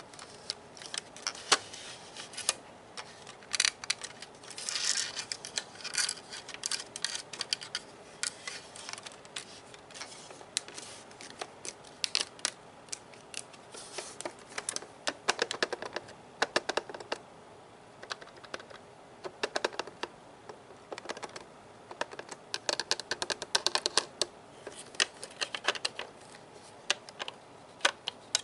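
Fingers tapping on the plastic body of a Nerf gun in quick irregular clicks, with a few short bouts of scratching on the plastic.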